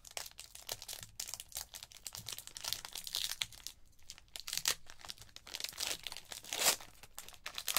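Foil wrapper of a Donruss football trading-card pack crinkling and tearing as fingers work the stubborn sealed top open, with the loudest rip near the end.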